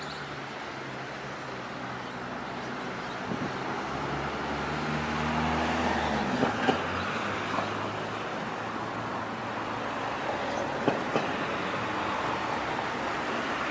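Road traffic: a vehicle engine hums low, its pitch rising about halfway through as it gets louder, over steady tyre and road noise. A few short sharp knocks come around the middle and again later.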